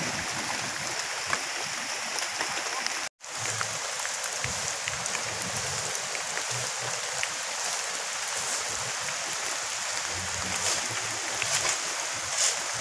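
Steady rain falling, a constant hiss with scattered drip ticks. The sound drops out for a split second about three seconds in.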